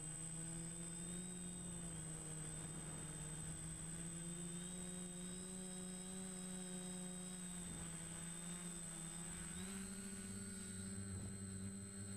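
DJI Flamewheel F450 quadcopter's electric motors and propellers droning steadily as heard from its onboard camera, the pitch drifting slightly and stepping up a little just under ten seconds in as the throttle changes.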